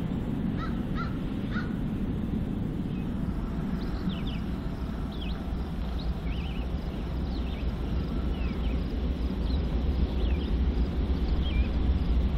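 A bird calls three times in the first two seconds, then small birds chirp again and again, over a low steady rumble that grows louder near the end.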